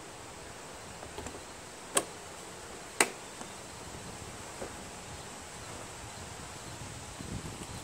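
Hands working the fuel tank and hose loose inside a lawn tractor's sheet-metal frame: two sharp clicks about a second apart, a few fainter taps, and rustling handling noise near the end.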